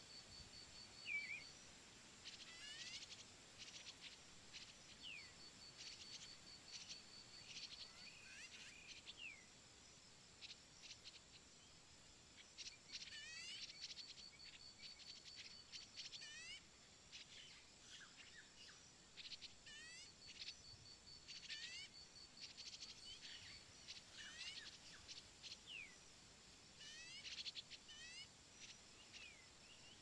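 Faint outdoor birdsong: many short, high chirps, most sweeping down in pitch, scattered throughout, with a rapid high pulsing trill that starts and stops several times.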